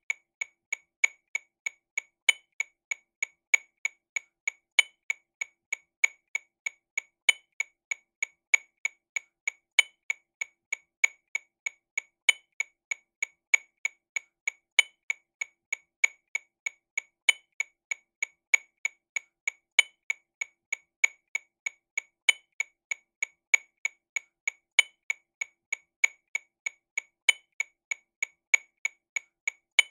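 TAMA Rhythm Watch RW200 metronome click sound ticking steadily in sixteenth notes at 48 BPM, about three clicks a second. A louder accented click recurs about every two and a half seconds.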